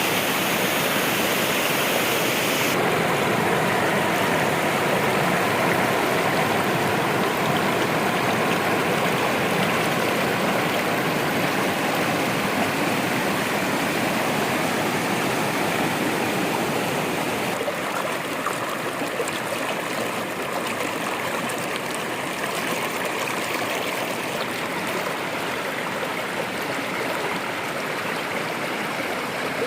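Waterfall water rushing and splashing in a steady, even noise. Its tone shifts abruptly about three seconds in, and again past the middle, where it turns slightly quieter.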